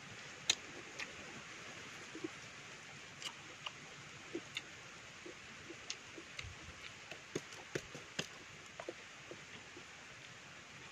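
A person eating ripe mango: soft, irregular mouth clicks and wet smacks of chewing, a couple a second at most, over a faint steady hiss.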